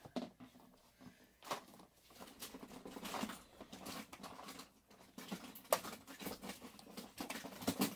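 Toy cars and plastic toy parts being handled: scattered light clicks, clatter and rustling, with one sharper click about two-thirds of the way through.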